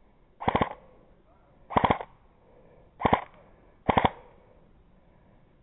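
Airsoft gun firing four short bursts of a few rapid shots each, spaced about a second apart.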